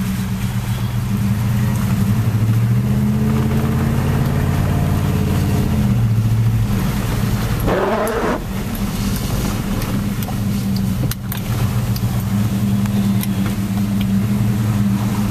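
Dodge Durango's engine and road noise heard from inside the cabin while driving slowly in traffic: a steady low hum. About eight seconds in, the windshield wiper squeaks briefly as it sweeps the glass, and a single click follows a few seconds later.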